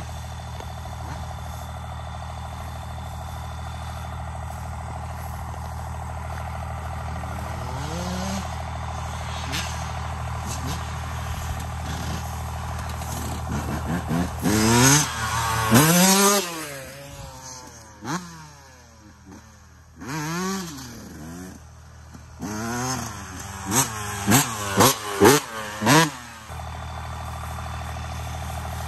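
Cummins diesel engine in a Dodge Ram pickup idling and being free-revved again and again, the pitch climbing and falling with each rev. Two big revs come about halfway through and a run of four quick blips near the end.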